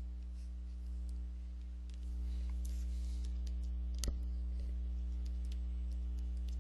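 Steady electrical mains hum with a few light scattered clicks and one sharper click about four seconds in.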